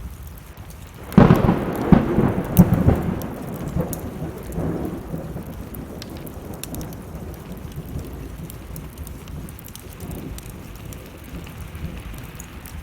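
A thunderclap breaks about a second in and rumbles and fades over the next several seconds, over steady rain. Sharp crackles from a burning wood fire sound throughout.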